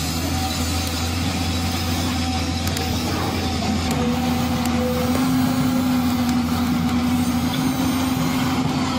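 Electric motors of a remote-control toy excavator whirring steadily as its arm lifts the bucket and tips out dirt, with a low hum under a steady whine that gets a little stronger about four seconds in.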